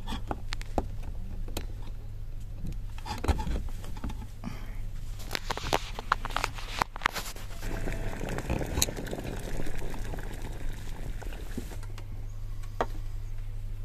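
Electric immersion heater (kipyatilnik) heating water in a steel-lined mug, the water ticking and crackling as it heats, with a denser hiss for a couple of seconds past the middle. A steady low hum runs underneath and cuts off just before the end.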